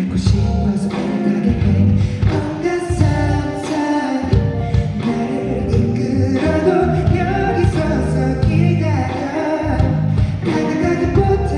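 Live concert performance of a pop song: a male singer singing over loud accompaniment with a steady beat, heard through the venue's sound system.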